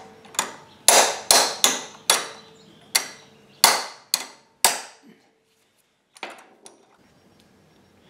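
Claw hammer tapping a wrench set on the end of a stuck exhaust valve stem in a Briggs & Stratton 20 HP twin's cylinder head: about nine light, ringing metal-on-metal taps over the first five seconds, to free the sticking valve, followed by a couple of faint clicks.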